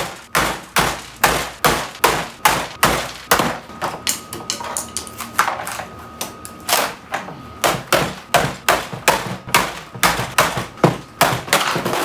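Hammer blows on an electric water heater's foam-insulated casing, struck repeatedly at about two to three a second with a short lull partway through, to break the casing open.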